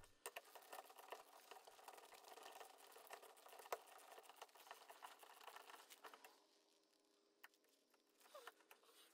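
Near silence, with faint scattered small clicks and ticks from a socket wrench working on a battery module's terminal bolt. One slightly louder click comes a little under four seconds in.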